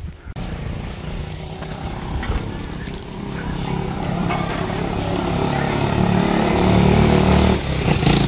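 Motorbike engine running close by, getting louder toward the end as a sidecar motorbike passes.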